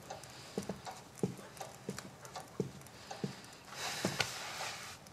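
Footsteps of boots on a hard floor, slow and evenly spaced at about one step every two-thirds of a second, followed near the end by a soft rustling lasting about a second.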